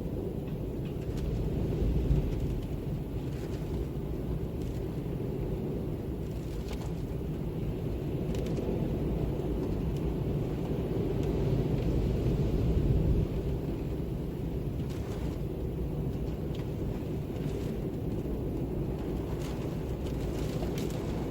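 Ambient wind: a steady low rumbling rush that swells briefly about two seconds in and again a little past the middle, with faint scattered ticks above it.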